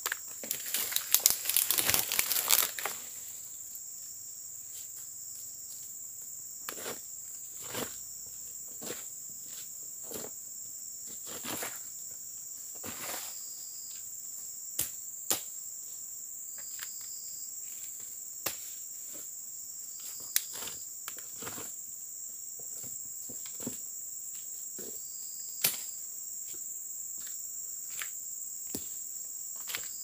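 A steady high drone of insects, with a dense burst of crunching and tearing of dry leaves and brush during the first three seconds as ground vegetation is cleared by hand and blade. After that come scattered sharp snaps and taps of twigs and dry debris underfoot.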